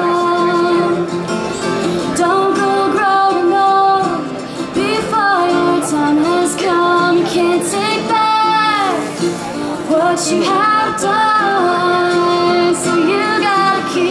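Acoustic folk band playing: a girl's singing voice, with acoustic guitars and mandolin behind it, long held notes that slide in pitch.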